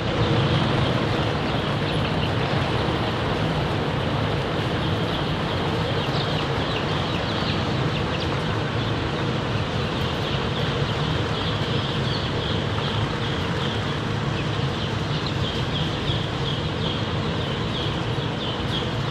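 A mass of eight-day-old pullet chicks in cage batteries peeping continuously, many short high peeps overlapping, over a steady machine hum in the poultry house.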